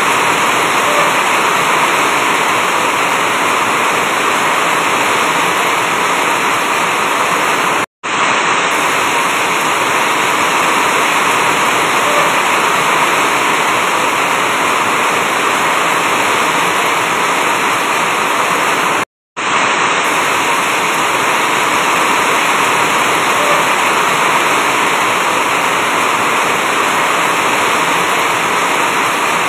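Heavy rain falling steadily on an asbestos-cement sheet roof, a dense even hiss. It cuts out to silence for a moment about 8 seconds in and again about 19 seconds in.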